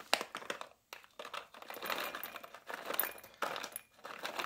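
Chinook hop pellets dropping into a small ceramic bowl as they are shaken out of a crinkling plastic bag, in several short pours with a brief pause about a second in.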